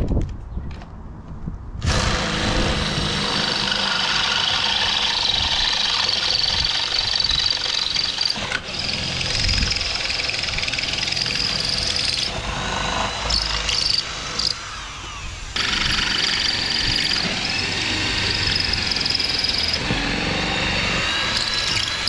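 Ryobi cordless drill/driver running in long continuous runs, driving bolts through the aluminum transom plates. It starts about two seconds in, stops briefly about two-thirds of the way through, then runs again.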